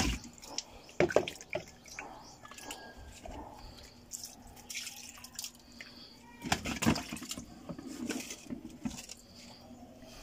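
Water scooped and poured with a plastic dipper, splashing and dripping, with a few sharp knocks of the dipper against a container, the loudest about a second in and again a little past the middle.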